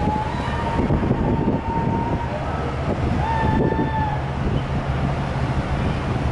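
Wind buffeting the microphone over a steady low hum, with two long, high-pitched calls in the first four seconds.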